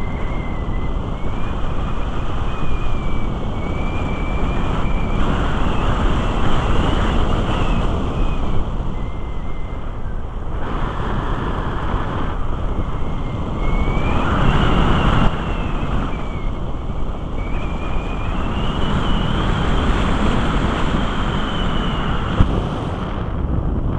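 Airflow rushing over a Musger MG12a glider's wing-mounted on-board camera microphone during a low glide toward landing, with a thin high tone that rises and falls in pitch throughout. A single short knock comes near the end.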